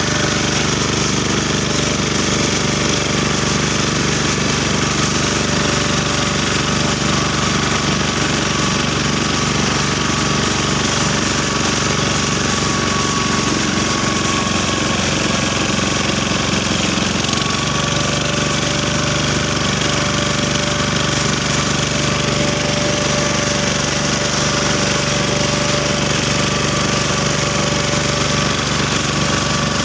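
BCS four-wheel reaper binder running steadily under load, its engine and working mechanism giving a continuous rapid mechanical clatter.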